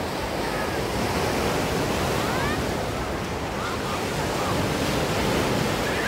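Small surf breaking and washing up a sandy beach: a steady rush of waves, with faint distant voices.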